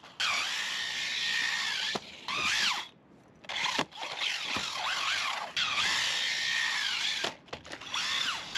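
SCY 16103 brushless 1/16-scale RC car's electric motor whining in repeated throttle bursts, its pitch rising and falling with each squeeze of the throttle. The motor goes quiet for about a second around three seconds in, then comes back on.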